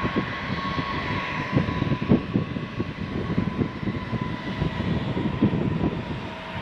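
Airbus A321 jet engines running with a steady whine, while wind buffets the microphone in irregular low gusts.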